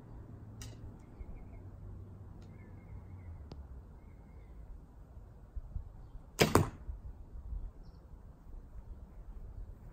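Recurve bow with a silenced string being shot: a faint sharp snap under a second in, then a loud sharp shot about six and a half seconds in.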